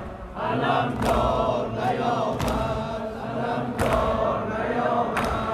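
A large crowd of mourners chanting together in unison, many voices holding long drawn-out notes.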